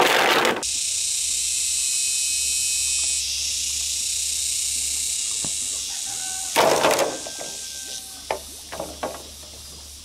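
Green bamboo poles knocking and clattering as they are laid onto a pile of bamboo on bare ground: one clatter right at the start, another about six and a half seconds in, then a few light knocks. A steady high-pitched hiss runs in the background and fades near the end.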